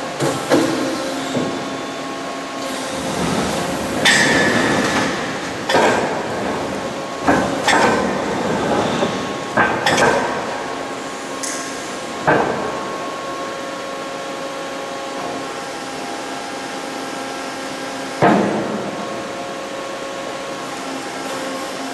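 Ficep CNC steel-processing machine running with a steady hum, broken by a series of sharp metal knocks and clanks as its marking and clamping units strike and grip the steel.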